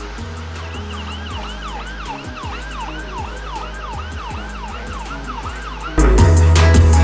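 A siren yelping, a fast rising-and-falling wail about three times a second, over background music with a steady bass beat. The siren stops just before six seconds in, where the music becomes much louder.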